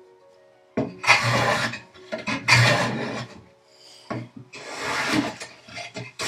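Hand plane shaving wood in about three long strokes of roughly a second each, after a short pause. It is flushing the dovetailed corners of a small box carcass.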